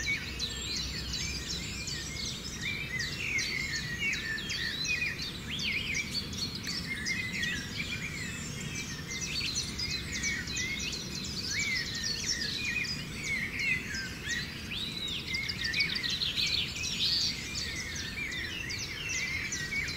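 A dense chorus of many birds chirping and whistling, with short calls gliding up and down and overlapping without a break, over a steady low rumble of background noise.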